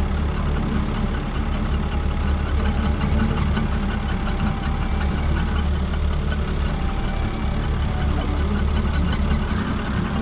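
Engine of a truck-mounted boom loader running steadily at idle while the boom lifts a pallet of beehives.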